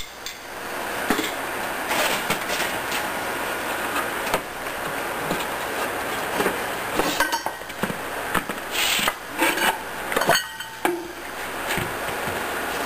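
Scattered metallic clinks and knocks as the lower gear case of an OMC Cobra sterndrive is worked down and separated from the upper gear case by hand, with a busier cluster of knocks from about seven to ten seconds in. A steady background noise runs underneath.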